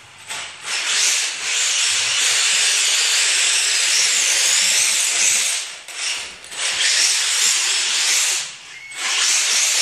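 Tamiya Hotshot RC buggy with a brushless motor spinning circles on a garage floor: a loud, high hiss of tyres scrubbing and motor whine in long runs. It drops away briefly about six seconds in and again about eight and a half seconds in.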